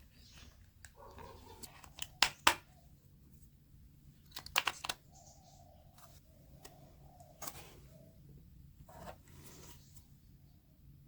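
Scattered sharp clicks and taps from handling craft materials: two a little over two seconds in, a quick cluster around four and a half seconds, and single ones later, over a low steady hum.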